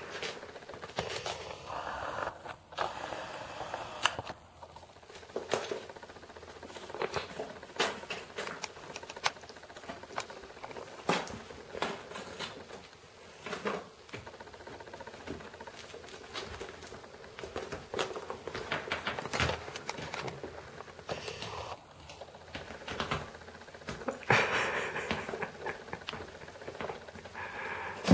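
Kittens playing on a wooden floor and in a cardboard box: an irregular patter of small paws and claws with quick clicks, scratches and rustles, loudest about 11 seconds and 24 seconds in.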